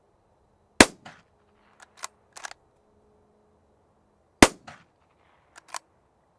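Two unsuppressed shots from a Ruger American bolt-action rifle in .300 Blackout, about three and a half seconds apart. Each shot is followed by a few clicks as the bolt is worked for the next round.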